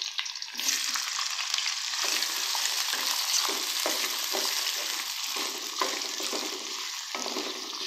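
Sliced onions frying in hot oil in a kadhai, sizzling steadily, with the scrape and knock of a wooden spatula stirring them. The sizzle jumps up about half a second in as the onions go into the oil, at the start of frying them to a light golden colour.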